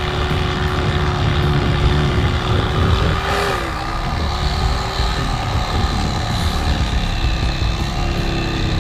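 Corded electric fillet knife running steadily as its reciprocating blades saw through a crappie. Its hum dips in pitch briefly about three and a half seconds in, and a little again near the end.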